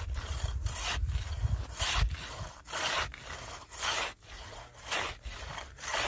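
Hand ice saw cutting a hole through thick sea ice: rasping back-and-forth strokes in a steady rhythm, about three strokes every two seconds.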